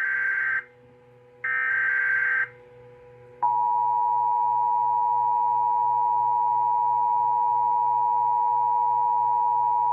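Emergency Alert System broadcast: two short, harsh, buzzing SAME header data bursts, then the steady two-tone EAS attention signal starting about three and a half seconds in. These mark the start of a new alert.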